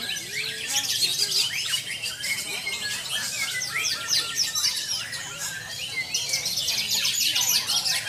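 White-rumped shama (murai batu) singing a fast, varied stream of chirps and trills, the mimicked repertoire shown off in contest song. Other caged songbirds chirp over it at the same time.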